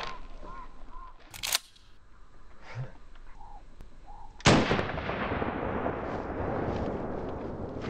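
A sharp clack about a second and a half in as the pump-action shotgun is worked one-handed, then a single shotgun blast about four and a half seconds in. The blast trails off in a long echo.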